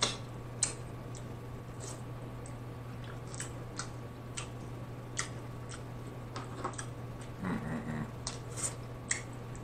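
Close-miked eating sounds of Dungeness crab meat: intermittent wet mouth clicks, lip smacks and small squishes as the meat is picked, dipped in sauce and chewed, over a steady low background hum. A brief low hummed "mm" comes about three-quarters of the way through.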